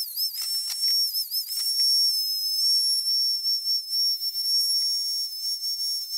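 Dremel rotary tool running at high speed with a high, steady whine, its pitch dipping briefly several times as the cutting disc is pressed into the winch shaft to cut retaining-ring grooves.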